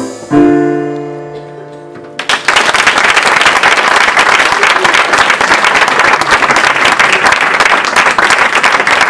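A band with trumpet holds a final note that fades out over about two seconds. Then the audience breaks into steady applause and clapping.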